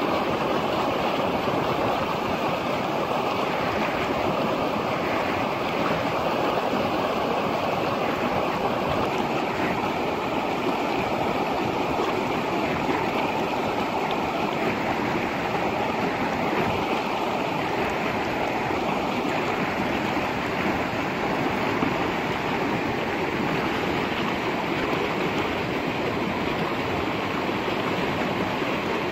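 A fast-flowing shallow river rushes steadily.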